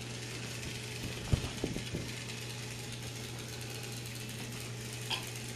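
Small battery-powered motor of a toy Thomas the Tank Engine train running along plastic track, a steady low hum. A few soft knocks come about a second and a half in.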